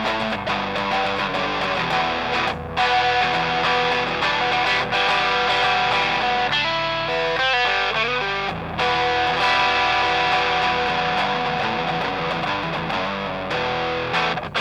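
Electric guitar played through an overdrive pedal, strummed chords and riffs with a driven, distorted tone. There are brief breaks twice, and the playing stops just before the end.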